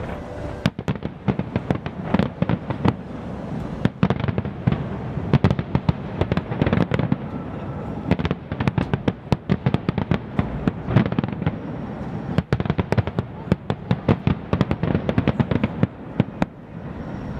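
Aerial fireworks going off: rapid, irregular bangs and crackling pops, several a second, thinning out near the end.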